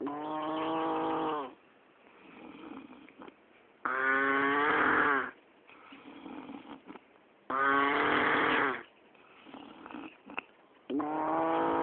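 A person snoring loudly and regularly: four long, pitched snores come about every three and a half seconds, with quieter breathing out between them. The uploader says it is the heavy snoring of someone who has drunk too much.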